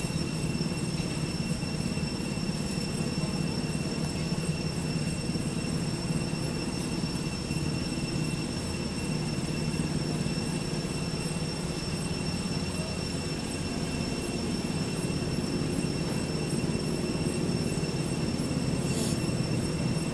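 Steady background ambience: a constant low rumble with a continuous high-pitched whine over it, unchanging throughout, and one brief high rasp near the end.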